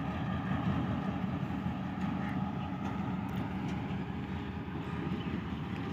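Diesel locomotive engine running with a steady drone and rumble, with faint steady whining tones over it.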